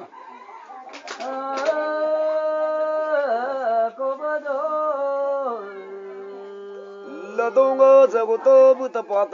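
Men chanting a Tagin ritual chant, holding long notes that slide from one pitch to the next. A few sharp clicks come about a second in. Near the end the chant grows louder, with quicker, choppier phrases.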